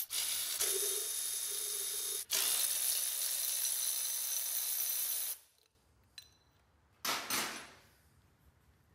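Cordless ratchet running in two spells, about two and three seconds long, with a brief pause between, spinning bolts off an exhaust pipe flange; it stops a little past five seconds in. A short scraping noise follows about seven seconds in.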